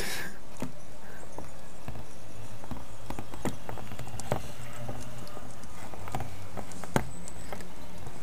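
Pond slider turtles' claws and shells clicking and scraping on the floor and walls of a dry plastic tub as they are handled and crawl about: an irregular scatter of taps, the sharpest about seven seconds in, over a low steady hum.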